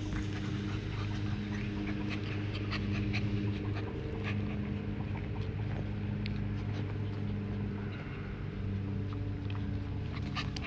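Pembroke Welsh corgi puppies moving about close by, with scattered small clicks and ticks, over a steady low mechanical hum.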